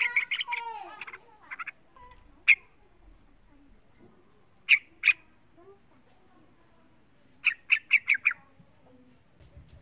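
Young yellow-vented bulbul calling. A dense chatter in the first second is followed by short, sharp call notes spaced out, singly and in a pair, then a quick run of five notes near the end.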